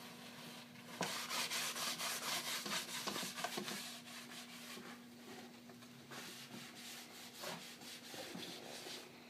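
Paper towel rubbed back and forth over the finished surface of a wooden board, wiping off water and softened hide glue. The strokes are brisk and even for about three seconds starting a second in, then slower and fainter.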